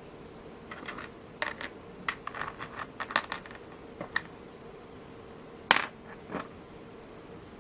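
Small beads clicking and tapping as they are picked up and slid onto a big eye beading needle: a scatter of light clicks, then one sharper click a little past the middle.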